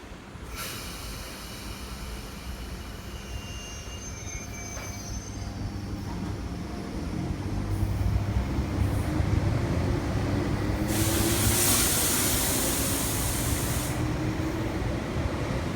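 MTR East Rail Line MLR electric multiple unit running through the station at speed without stopping, growing steadily louder as it approaches and passes. Thin high wheel squeals sound in the first few seconds, and a loud hissing rush comes about eleven seconds in and lasts some three seconds.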